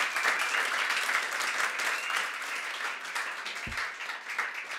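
Audience applauding, dense clapping that slowly thins and fades toward the end. There is a single low thump about three-quarters of the way through.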